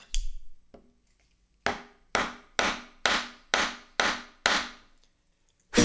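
Sharp knocks on wood: one near the start, then a run of seven evenly spaced knocks, about two a second, each ringing briefly.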